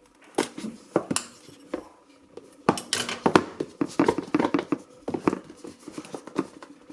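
Handling of a cardboard box and its packaging: a steady run of small clicks, knocks and rustles as the USB Wi-Fi adapter is worked out of the box.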